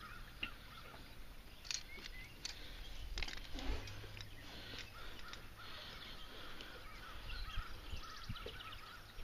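Birds calling in short repeated chirps, most densely in the second half, with a few sharp clicks and knocks early on from handling a fish-gripping scale.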